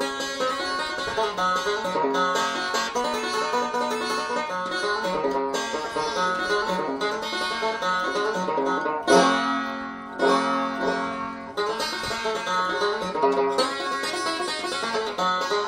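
Five-string resonator banjo played solo, a fast unbroken run of picked, ringing notes. About nine seconds in, two loud chords a second or so apart ring out before the quick picking picks up again.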